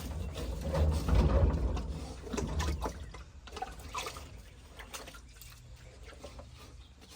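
Water pouring and trickling into a livestock water container, loudest in the first three seconds and then tailing off, with scattered small knocks.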